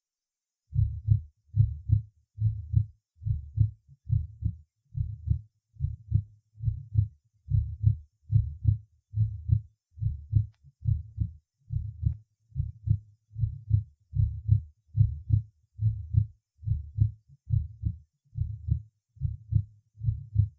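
Recorded heart sounds at the cardiac apex: a regular run of heartbeats with a short, soft functional systolic murmur, the sign of subvalvular mitral insufficiency.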